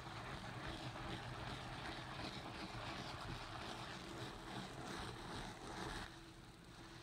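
Rubber-gloved hands scrubbing foamy cleaner into a rug's pile, a continuous scratchy rustling that stops about six seconds in.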